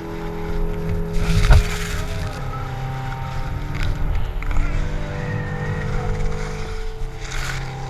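Background music with held notes, over a low wind rumble on the action camera and the hiss of skis carving on snow, loudest about a second and a half in and again near the end.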